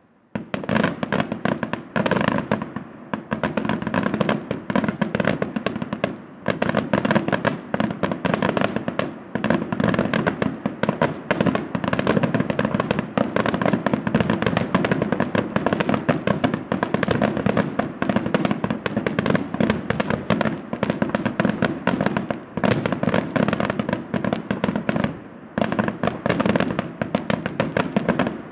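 A dense, continuous barrage of aerial firework shells bursting, several bangs a second, with crackle between them. The barrage eases briefly twice, about a quarter of the way in and near the end.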